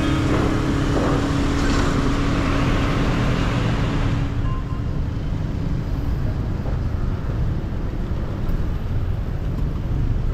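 Honda motorcycle engine running at low speed in traffic, with a steady low rumble of engine, road and wind noise. A higher hiss dies away about four seconds in.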